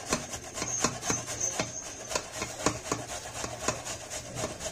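Carrots being grated by hand on a grater: steady rasping strokes, about three a second.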